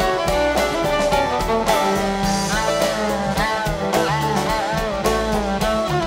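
Live string band playing an instrumental break with no singing: fiddle and plucked strings (mandolin, banjo) over bass and a drum kit, with sliding melody notes.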